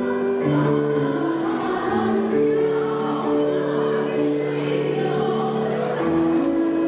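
Women's choir singing, several voices holding long notes together in parts.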